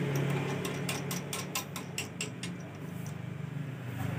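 A quick run of about a dozen light clicks, about five a second, as the key duplicating machine is handled, then stopping; a steady low hum runs underneath.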